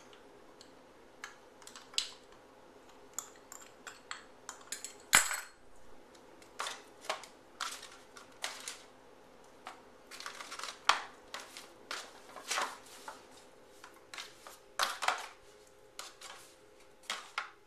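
Disposable aluminium foil roasting pan crinkling and rattling in irregular short bursts as hands rub seasoning into a raw pork roast, with a sharp knock about five seconds in.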